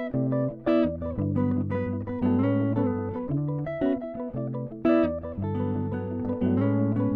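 Background music: plucked guitar picking out notes over a bass line.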